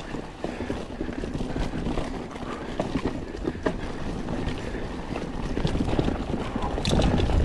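Mountain bike riding a dirt trail: tyres rolling over rough ground, with the bike rattling in quick, irregular clicks and knocks over roots and stones, getting louder near the end.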